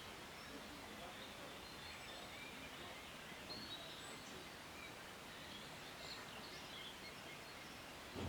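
Faint, steady background ambience with a few faint, short high chirps scattered through it.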